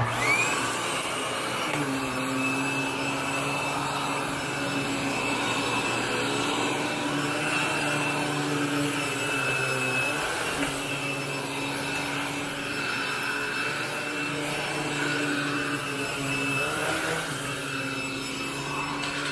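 Upright vacuum cleaner switched on, its motor whine rising as it spins up, then running steadily while it is pushed over carpet, the tone shifting slightly as it moves.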